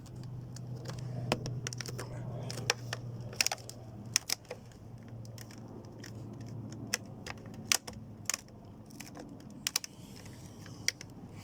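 Scattered sharp clicks and taps of a carbon fibre splitter insert being handled and pressed into place on the car's front bumper, with its 3M tape. A faint steady low hum runs under the first half and then fades.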